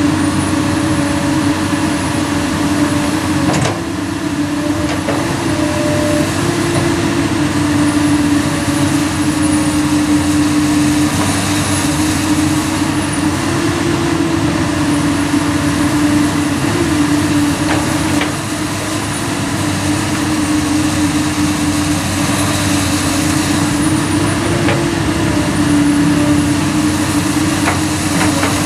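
Komatsu PC200 hydraulic excavator working soil, its diesel engine running steadily under load with a constant hum. A few faint knocks sound over it, and the engine note eases briefly twice, about four seconds in and again past the middle.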